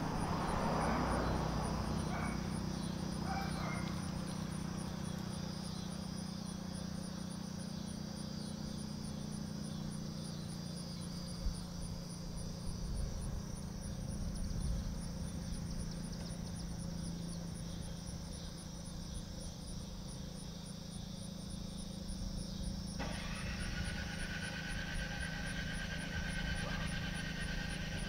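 FS&S STH-10 outdoor warning siren coasting down after its two-minute alert, a low steady hum as the rotor slowly spins down. Insects chirp at an even, rapid pace throughout, and about five seconds before the end a passing engine noise comes in.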